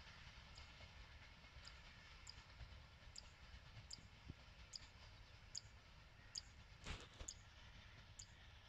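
Near silence: faint outdoor ambience with a short, high tick or chirp repeating about once every 0.8 s, and a single soft knock about seven seconds in.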